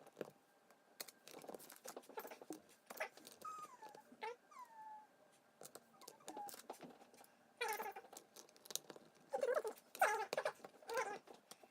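A dog whining in high, wavering whimpers and squeaks, louder in the later part, with scattered clicks.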